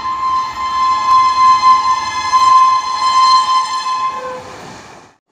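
Train horn sounding one long, steady, high note, then dying away about four seconds in.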